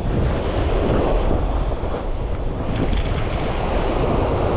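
Wind buffeting the microphone over the steady wash of small surf breaking on a sandy beach.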